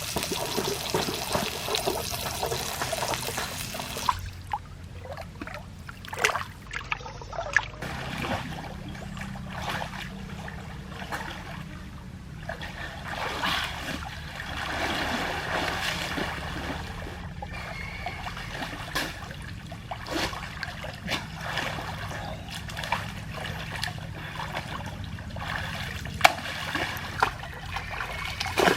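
Water trickling and splashing, with scattered sharp clicks and knocks over it.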